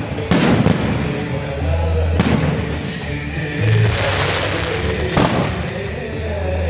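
Aerial firework shells bursting: several sharp bangs, the loudest about two seconds in and again near five seconds, with a spell of crackling between, over loud music with a steady bass line.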